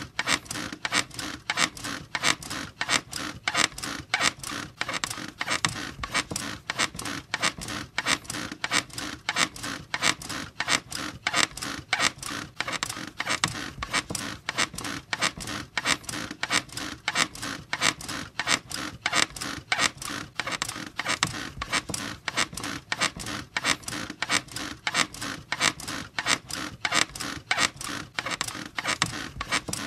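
Squeaky bed creaking in a steady, even rhythm, about two squeaks a second.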